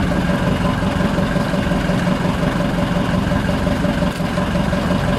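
Outrigger boat's engine idling, a steady, unbroken hum.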